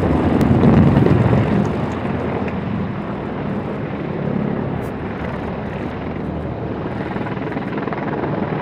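Several military attack helicopters flying overhead: a steady rotor and turbine noise, loudest in the first second or two, then settling to a slightly lower, even level.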